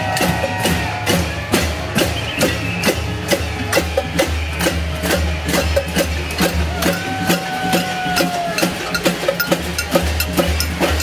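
A marching crowd bangs pots, pans and drums in a steady rhythm, about two or three sharp strikes a second over a pulsing low beat.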